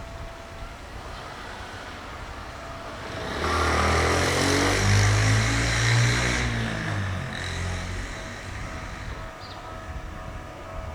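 A motor vehicle passing close by. Its engine and road noise swell about three seconds in, stay loud for about three seconds, then fade into a steady background hum.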